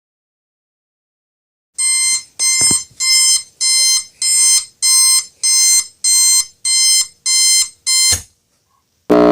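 Electronic alarm clock buzzer beeping in a steady run of short, shrill pulses, about two a second, that start after a short silence and stop abruptly.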